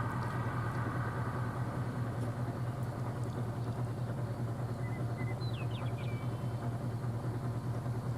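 Vehicle engine running steadily with a low, even hum. A few faint high chirps come about five seconds in.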